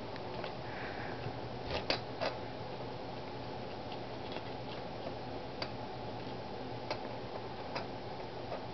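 Steady low room hum with a few faint, scattered clicks and taps, the sharpest one near the end.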